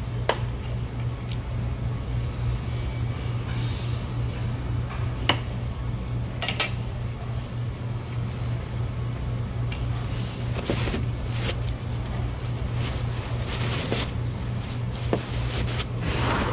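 Metal fork clinking and scraping on a ceramic plate while a salad is eaten: a few single clicks at first, then a busier run of clinks about two-thirds of the way in. Under it is a steady low hum.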